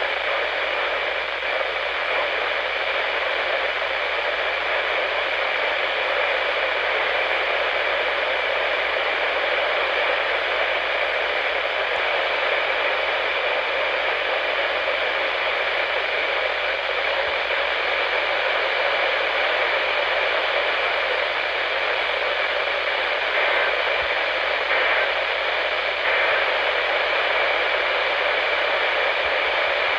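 Steady radio static from a weather radio receiver: an even hiss with no broadcast audio coming through.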